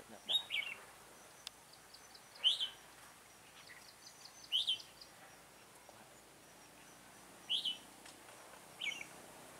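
Red-whiskered bulbuls calling: about five short, bright notes, each falling quickly in pitch, a couple of seconds apart. Faint rapid high ticking comes between them.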